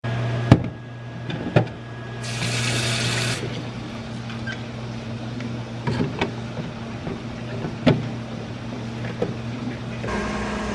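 Hard plastic clicks and knocks as the lid of a plastic water container is pressed down and handled, with a brief hiss about two seconds in, over a steady low appliance hum.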